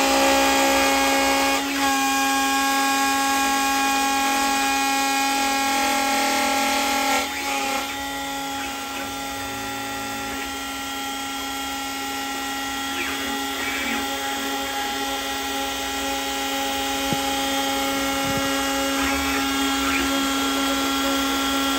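CNC machine spindle milling an aluminium plate with an end mill: a steady whine made of several pitched tones over cutting noise, dropping somewhat in level about seven seconds in.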